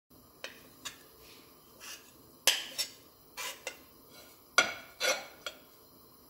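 A metal spoon scraping and clinking against a plate and pot while chopped walnuts are pushed off the plate into the pot: irregular clinks and scrapes, the loudest about two and a half and four and a half seconds in.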